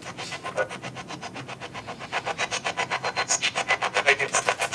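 Spirit box sweeping through radio stations: rapid choppy bursts of static and clipped station fragments, about ten a second, getting louder about two seconds in.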